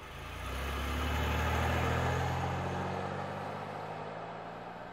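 Car engine running as the car drives off, the engine sound swelling to its loudest about two seconds in and then fading away.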